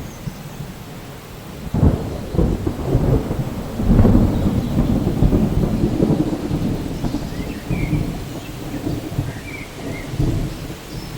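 Thunder rumbling in a rainstorm: a low roll sets in about two seconds in, swells around four seconds and slowly dies away over steady rain.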